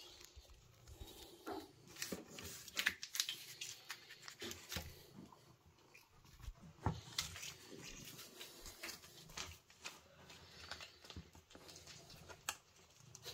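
Faint, irregular clicks, knocks and rustles of cat food pouches, bowls and the phone being handled one-handed on a kitchen counter.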